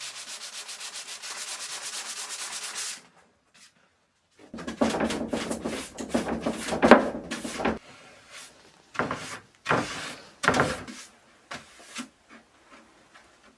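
Sandpaper rubbing on wood, smoothing dried wood filler in a crack in ash veneer: a quick, even run of short strokes for about three seconds, then after a brief pause slower, uneven strokes and a few separate single passes.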